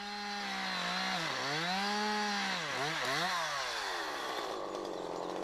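Husqvarna two-stroke chainsaw running at full throttle while cutting into a trunk. Its engine note sags and recovers several times as the chain bites and the load pulls the revs down. About four seconds in it drops into a longer, rougher low note under heavier load.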